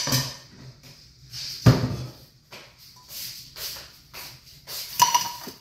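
Scattered knocks and clatter of cookware and utensils being handled in a kitchen. The loudest knock comes about a second and a half in and another near the end, over a faint steady hiss.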